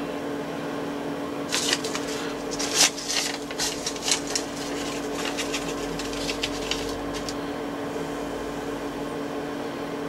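Steady machine hum in a workshop, with a flurry of irregular light clicks and taps for several seconds in the middle.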